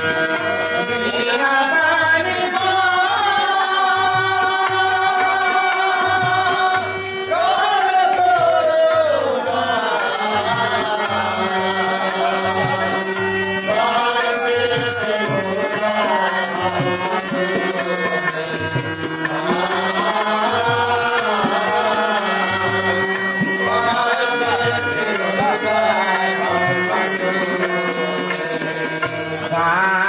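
Bengali bolan folk song: a man singing over the held chords of a hand-pumped harmonium, with a two-headed drum beating a steady rhythm underneath.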